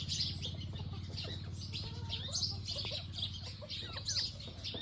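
Bantam chickens clucking, with many short high chirps throughout and a steady low hum underneath.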